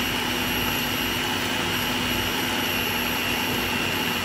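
Food processor motor running steadily at speed, its blade grinding chunks of raw chicken and seasonings into a meatball paste, with a steady high whine over the churning.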